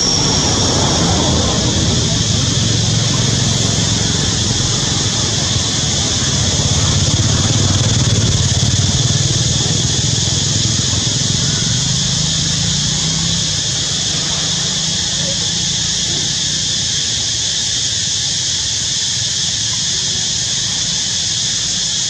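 Steady high-pitched insect drone, with a low engine rumble underneath that fades out about two-thirds of the way through.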